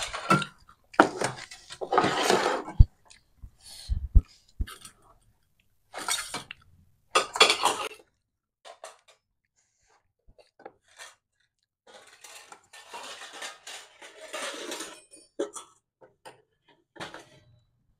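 Eating panipuri and chatpate from dishes: irregular clinks of utensils against plates and bowls, with short spells of crunching and chewing between quiet gaps.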